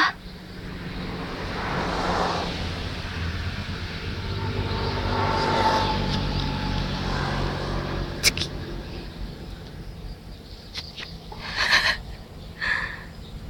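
A motor vehicle's engine hum swells over a few seconds and then fades away over a steady low drone. Near the end, two short loud calls cut in.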